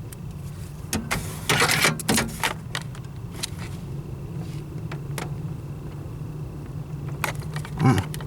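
Light metallic rattling and clicking from handling things around the pedal under a pickup's dashboard, in a burst about a second in and again near the end, over a steady low hum.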